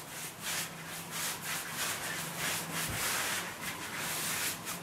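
Paintbrush spreading clear varnish on bare pine bed-frame slats: a dry swishing rub of repeated back-and-forth strokes, about three a second.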